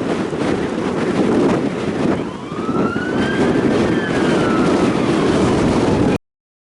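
Steady rain and wind noise, with a siren wailing once, rising and then slowly falling, starting a little past two seconds in; all sound cuts off suddenly about six seconds in.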